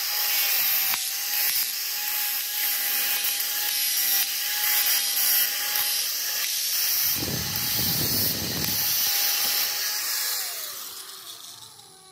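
Electric power tool running at a steady speed with a loud hiss as it works on a ball joint, turning rougher and deeper for a couple of seconds about seven seconds in. About ten seconds in it is switched off and winds down, falling in pitch and fading.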